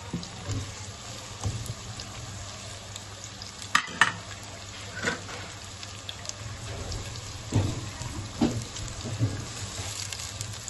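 Sliced onions frying in oil in a non-stick pot, at the start of browning, with a few knocks and stirring. The loudest sounds are two sharp clicks about four seconds in.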